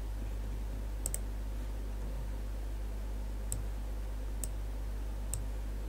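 Computer mouse button clicks: a quick double click about a second in, then three single clicks roughly a second apart. A steady low electrical hum runs underneath.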